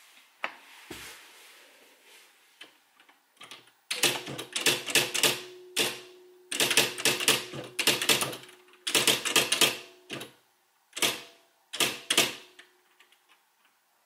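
Smith Corona SL600 SpellRight electronic daisywheel typewriter printing in quick bursts of sharp strikes, several strikes to a burst, with a steady low motor hum under the longer bursts. The bursts start about four seconds in, after a few soft knocks.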